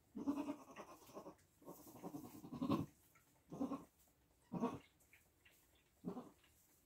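Nigerian Dwarf goats bleating: about five calls, the first two long and the last three short and spaced out.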